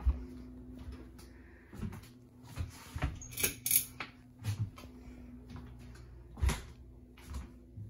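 Scattered light knocks and clicks from someone walking through rooms and handling things, with the sharpest knocks about three and a half and six and a half seconds in, over a faint steady hum.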